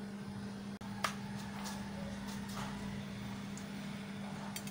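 A steady low electrical hum that drops out for an instant just under a second in, with a few faint soft taps and rustles as a batter-dipped drumstick is rolled in bread crumbs.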